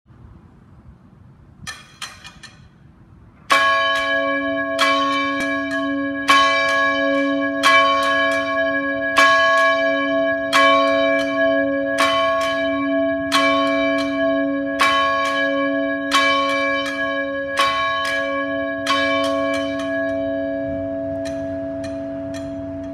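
Church bell tolling: about a dozen slow strokes, one roughly every second and a half, each leaving a long ringing hum that builds up and then rings out after the last stroke. A few faint ticks come just before the first stroke.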